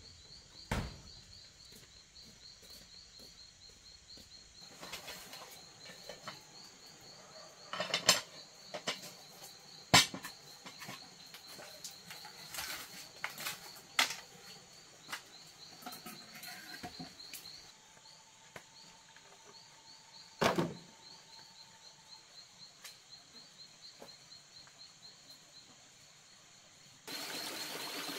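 Insects chirping steadily in a high, fast-pulsing trill, with scattered sharp knocks and clicks. About a second before the end, the even rush of a flowing stream takes over.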